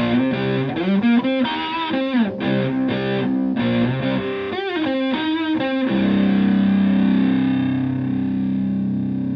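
Stratocaster electric guitar played through an EarthQuaker Devices Hoof fuzz pedal and a Twin Reverb-style amp: a distorted lead phrase of picked notes with string bends, then a chord struck about six seconds in that is left to sustain and slowly fade.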